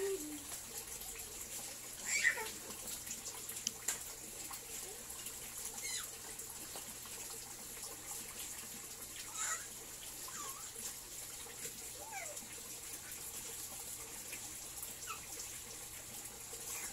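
Steady trickle of running water, with short high chirps scattered through it every few seconds.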